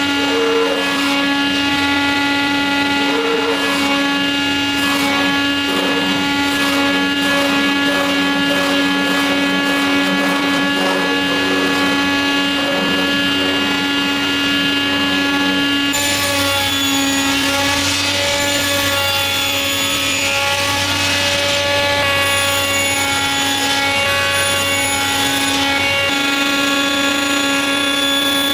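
Electric power tool motor running steadily with a constant whine. A little past halfway the sound changes, with a high hiss added over the whine.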